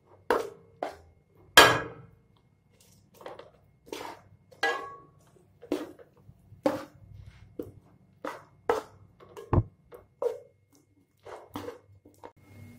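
Metal ladle knocking and scraping against a stainless steel kadai while peanuts and sesame seeds are stirred into melted sugar for chikki, in irregular strokes about once a second, the loudest about a second and a half in.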